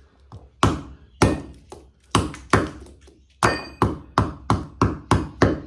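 Club hammer striking a screwdriver and a scrap light ballast on a brick, smashing the steel off the ballast to free its copper winding. About a dozen sharp blows, quickening from about two a second to about three a second. One blow about halfway through leaves a brief metallic ring.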